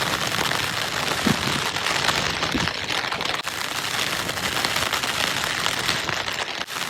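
Heavy rain and gusting wind: a dense, steady hiss with scattered hits of drops.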